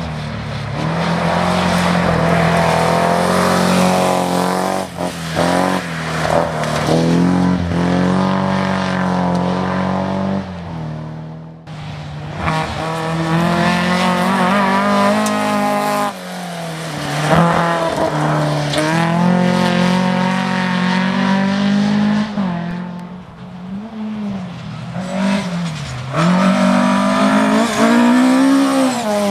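Rally cars driven hard along a gravel stage, one after another. The engines rev up and drop back repeatedly through the gear changes as each car comes past, with the sound breaking off abruptly between cars at about a third and two-thirds of the way through.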